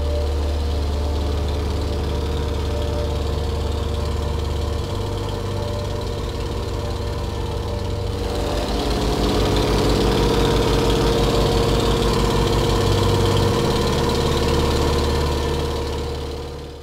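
Antonov An-2's nine-cylinder, 1000 hp radial engine and four-blade propeller running steadily. The note changes about five seconds in and again around eight seconds, runs louder for a while, then fades out near the end.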